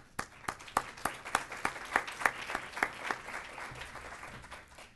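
Audience applauding, the clapping thinning out and fading in the last second or so.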